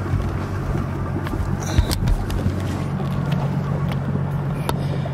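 Yamaha outboard motor running at low speed as a bass boat comes off its trailer and backs away from the ramp: a steady low hum, with a couple of brief knocks partway through.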